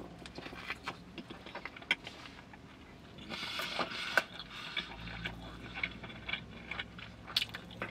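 Close-up chewing and mouth sounds of a man eating a grilled chicken breakfast sandwich: a bite, then many small wet clicks and smacks, with a louder stretch of chewing about three seconds in. A faint low steady hum runs underneath.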